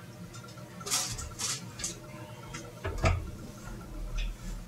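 Small splashy ticks at an aquarium's water surface as guppies feed at the top, about half a dozen short bursts over a faint steady hum. A low rumble runs under the second half.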